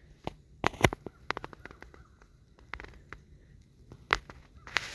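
A run of irregular, sharp clicks and crackles close to the microphone, like dry brush being shifted, with the loudest snaps about a second in and near the end.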